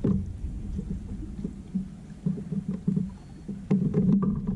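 Water lapping against a kayak hull, an uneven low rumble, with a few light clicks and knocks from fishing tackle being handled.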